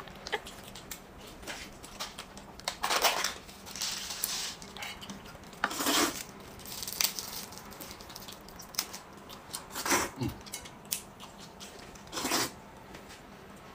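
Eating at a table: flat rice noodles slurped from a metal bowl in a few short noisy bursts, with small clicks of chopsticks and a spoon against the bowl and cups in between.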